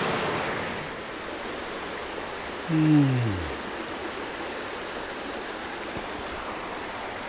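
Steady rush of a rocky stream flowing over rocks. About three seconds in, a short pitched sound slides down in pitch over the water noise.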